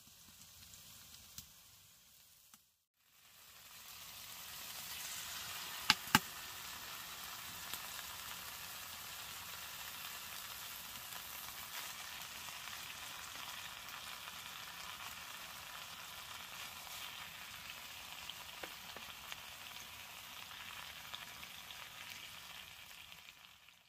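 Food sizzling steadily in a hot frying pan on a wood-burning stove, starting about four seconds in and cutting off suddenly just before the end. Two sharp clicks sound about six seconds in.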